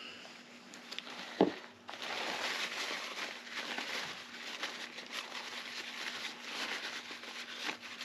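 Paper towel rubbing and crinkling as a brass safe-lock part is wiped clean. A single sharp knock comes about a second and a half in.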